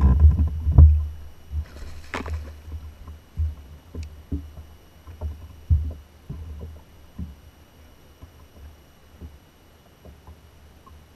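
Low, irregular rumbling thumps of wind and water buffeting a boat-mounted camera, loudest in the first second and fading away, with a brief splash about two seconds in as a bass is netted at the boat's side.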